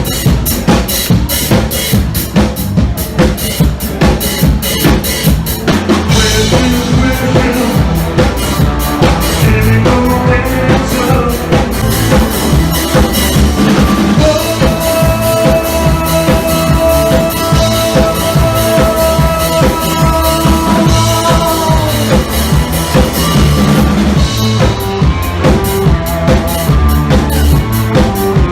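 A live rock-pop band playing on stage, with a drum kit keeping a steady beat under bass and a long held note through the middle.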